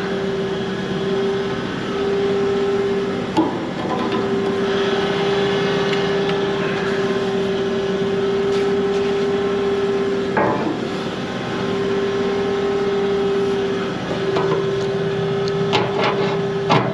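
Tractor engine running steadily with a constant pitched hum. It is broken by a few clunks, about three and ten seconds in, and a run of clicks and knocks near the end.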